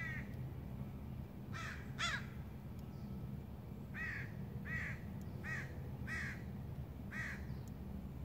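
A bird calling repeatedly: about eight short calls, roughly one a second, with two close together about two seconds in, over a steady low rumble.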